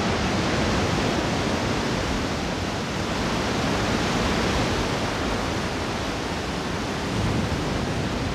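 Ocean surf breaking and washing up a sandy beach: a steady rush of waves with no let-up.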